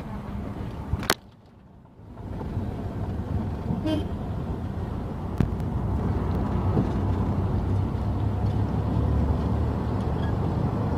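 Steady low rumble of a car on the move, with a sharp click about a second in and a short quiet gap after it. A brief toot, like a car horn, sounds about four seconds in.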